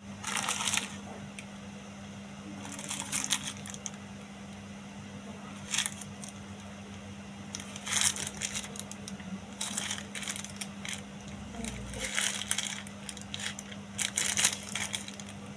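Plastic courier mailer bag and its packing tape crinkling and rustling in the hands as the package is worked open, in irregular bursts every second or two. A steady low hum runs underneath.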